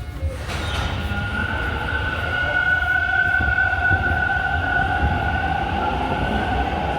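TTC subway train running, a steady low rumble with a high, steady squealing whine that sets in about half a second in and holds, wavering slightly.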